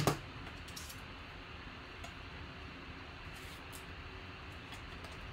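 Hard plastic trading-card holders being handled: one sharp clack right at the start, then a few faint light clicks over a steady low hiss.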